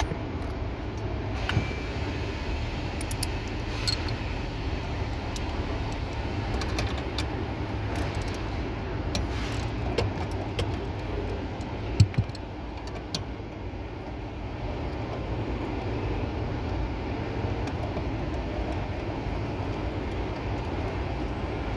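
Scattered metallic clicks and clinks of a hand tool and a 12 mm bolt being worked loose under the dash, over a steady low hum. A sharp knock about twelve seconds in is the loudest.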